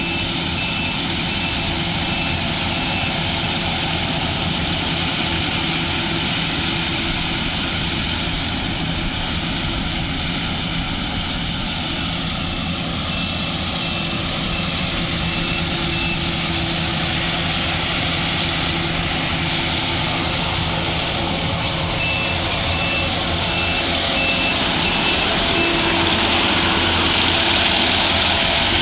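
Combine harvester's diesel engine running steadily under load. A warning beeper sounds in three runs of short, evenly spaced high beeps. The engine grows a little louder near the end.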